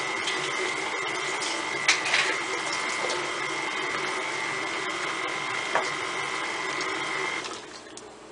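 KitchenAid tilt-head stand mixer running with a steady whine, its flat beater creaming butter, sugar and eggs in the steel bowl, with a couple of knocks about two seconds in. The motor is switched off near the end.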